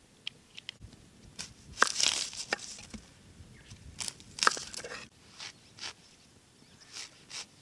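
A run of irregular crunching and rustling sounds, loudest about two seconds in and again about four and a half seconds in, with fainter crunches between and after.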